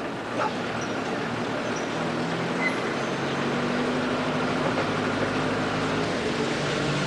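Car engine running with road noise inside the cabin of a moving car. A steady low engine hum sets in about two seconds in.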